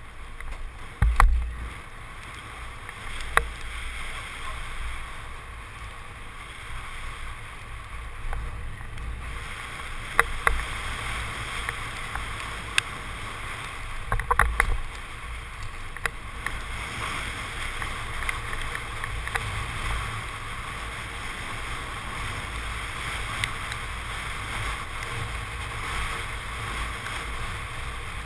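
Wind rushing over a helmet-mounted camera's microphone, with tyre rumble, as a mountain bike rolls fast down a paved road. A few sharp knocks from the bike jolting over bumps, the wind noise growing louder about a third of the way in.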